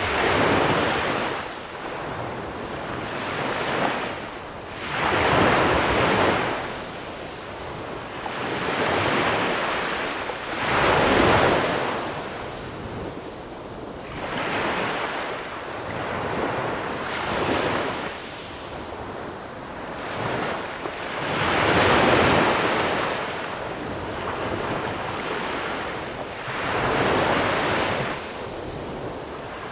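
Small sea waves breaking on a pebble beach and washing back over the pebbles, swelling and fading every few seconds, with some wind on the microphone.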